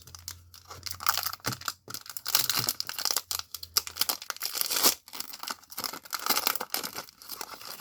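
Foil Pokémon card booster pack wrapper being torn open and crinkled by hand, an irregular crackling with short sharp clicks throughout.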